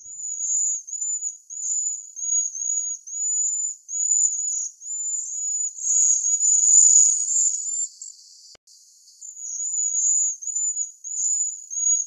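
Cedar waxwings calling: a string of very high-pitched short arching notes, about three a second, overlapping most thickly around the middle, with a brief lull about three-quarters through.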